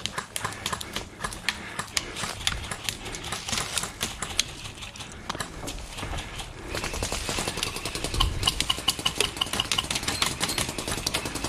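Dry brush, weeds and grass rustling and crunching as someone pushes through on foot, full of rapid, irregular sharp clicks. It gets louder about seven seconds in.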